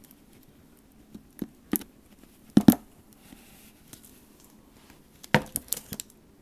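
A few short knocks and taps of containers being handled and set down on a table, the loudest about two and a half seconds in and a quick cluster of several near the end.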